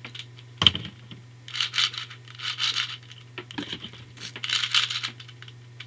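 Plastic puzzle cube being handled: a sharp click about two-thirds of a second in, then three short bursts of scratchy plastic rustling.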